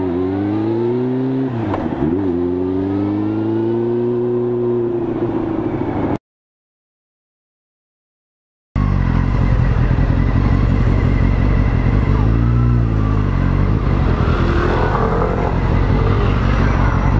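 Motor scooter engine running in city traffic, its note rising and falling. About six seconds in it cuts to silence for about two and a half seconds, then returns louder with wind and street noise.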